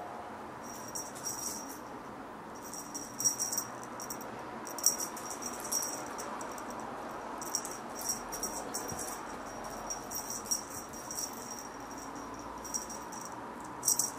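Small bell on a feather cat-teaser wand jingling in short bursts as the wand is flicked about, over a steady background hiss.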